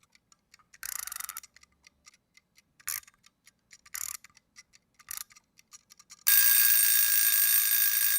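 Clock ticking quickly and evenly, broken by a few short louder bursts, then an alarm clock ringing loudly and steadily for about two seconds near the end.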